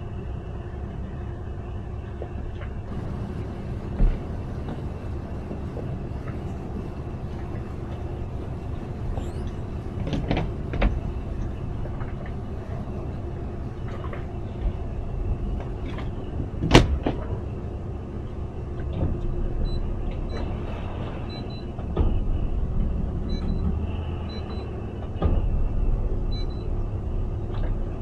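Small towboat's outboard motors running at low speed, a steady low hum, with a few knocks and clunks, the sharpest one a little past halfway.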